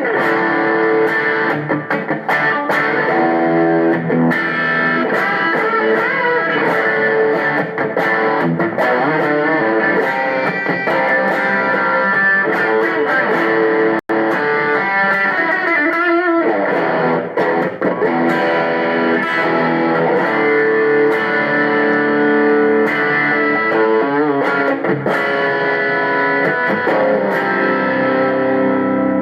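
Distorted electric guitar through a Zoom G3Xn multi-effects pedal on a lead drive patch, playing a continuous solo of sustained single notes with some pitch bends. The sound cuts out very briefly about halfway through.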